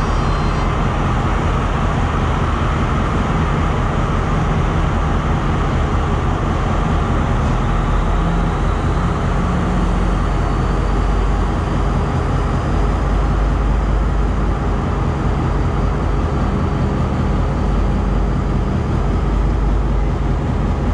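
Diesel train engines idling at a station platform: a steady, loud, even engine rumble with a low hum.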